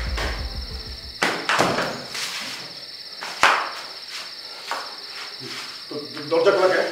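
Steady high insect chirring of a night ambience, with a few dull thuds and one sharp knock about three and a half seconds in. A low throbbing music beat fades out about a second in.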